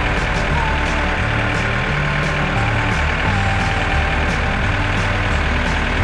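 Tractor engine running steadily under load as the tractor drives along.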